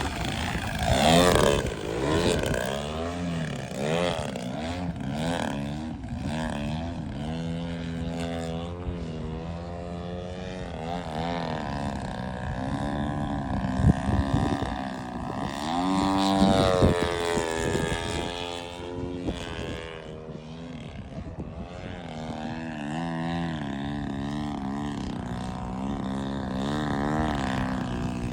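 Radio-controlled propeller model airplane flying, its motor and propeller sound rising and falling in pitch and loudness as it makes passes, loudest about a second in and again around sixteen seconds in.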